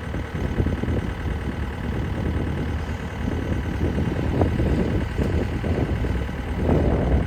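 John Deere 313 skid steer engine idling steadily.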